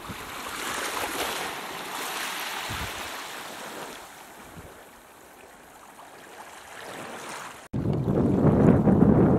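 Small waves washing at the edge of a shallow sandy, rocky shore, a soft hiss that fades away. About three-quarters through, the sound cuts off abruptly and is followed by louder wind rumbling on the microphone.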